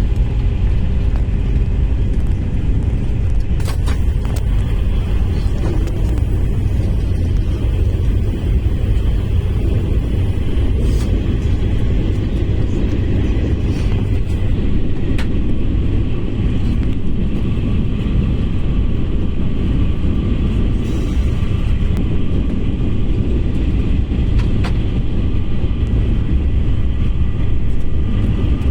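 KTX high-speed train running: a steady low rumble with faint high tones over it and a few faint clicks.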